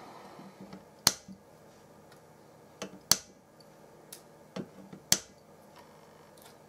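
Side cutters snipping excess component leads off the solder side of a printed circuit board: three sharp snips about two seconds apart, with a couple of fainter clicks between them.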